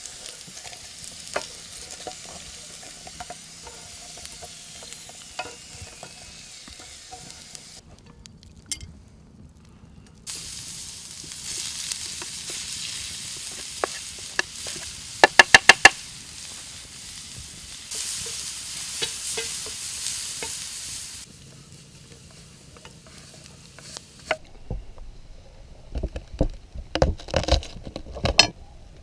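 Vegetables sizzling in a hot frying pan and then a wok, with a wooden spatula scraping. Midway there is a quick run of sharp knocks as carrots are tipped off a wooden board. Near the end a knife chops in quick, uneven strokes on a bamboo cutting board.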